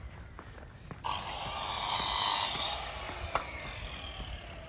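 Scattered light knocks and clicks, with a harsh rasping, hissing noise about a second in that lasts a little under two seconds.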